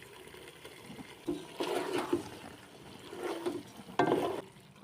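Chicken macaroni in a saucy mix being stirred in a cooking pan with a utensil: irregular wet scraping and squelching in four or five bursts.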